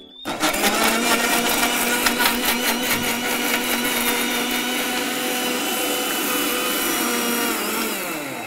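Prestige mixer grinder running at full speed, its blades grinding a wet mix of blanched tomatoes, chillies and garlic with a little water into chutney paste. The motor starts just after the beginning and slows and winds down near the end.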